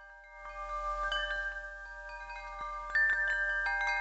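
Chimes ringing: many overlapping bell-like tones struck one after another, each ringing on, growing louder about three seconds in.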